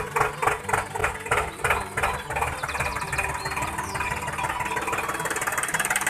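Tractor engine chugging at a slow, even beat of about three pulses a second, settling into a steadier running sound after about two seconds.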